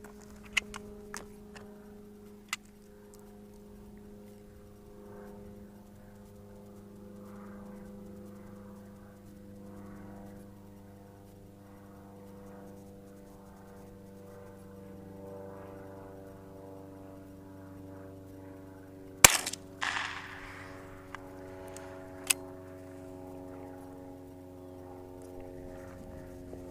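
A single rifle shot about 19 seconds in, the loudest sound, with a short ringing echo after it. A few smaller sharp clicks come before and after, over a steady low engine drone.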